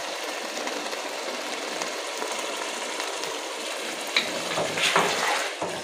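Pumpkin-and-meat curry (kaddu gosht) sizzling as it fries in ghee in a pot, a steady hiss, with a few louder clatters about four seconds in.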